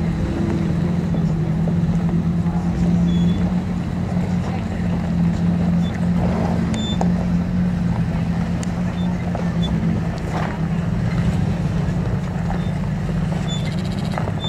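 Solid-axle-swapped 2002 Nissan Frontier's engine running steadily at low revs as the truck crawls over rocks.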